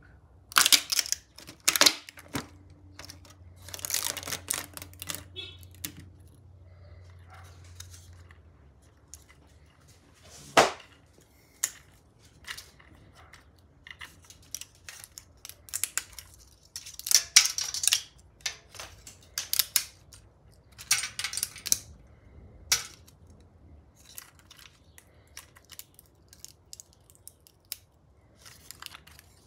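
Sharp plastic clicks and crackles from the joints of a 3D-printed articulated bunny as its limbs are worked and flexed by hand, coming in irregular clusters with short pauses between them.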